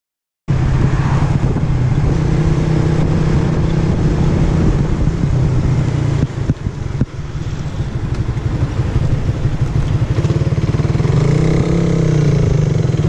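Suzuki Raider R150 Fi's single-cylinder engine running steadily as the motorcycle rides along the road. The sound starts abruptly about half a second in and dips briefly around six to seven seconds in.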